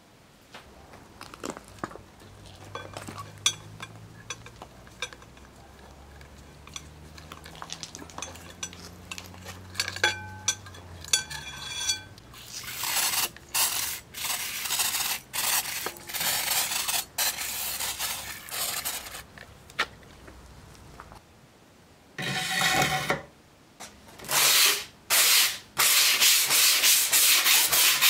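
Sandpaper rubbing back and forth on a steel bayonet scabbard by hand. Faint clicks at first, then loud, uneven scrubbing strokes, ending in fast, even sanding strokes several times a second.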